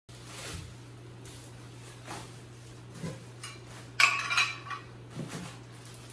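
Loose metal parts being handled and set down: a few soft knocks and one loud metallic clink with a short ringing about four seconds in.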